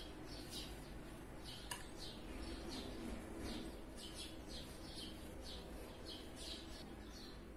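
Faint, scratchy strokes of a metal spatula spreading and pressing biscuit crumbs over a dessert in a ceramic mould, about three short scrapes a second, with one light tap about two seconds in.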